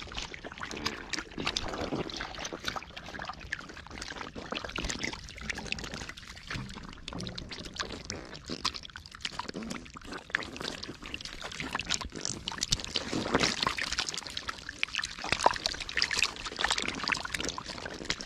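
Dozens of live catfish thrashing and wriggling against each other in shallow muddy water: a dense, irregular run of wet splashes, slaps and sloshing, busiest a little past the middle.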